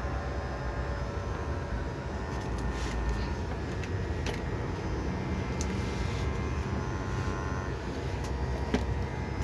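Steady low mechanical rumble with a few faint steady tones and several short light clicks scattered through it.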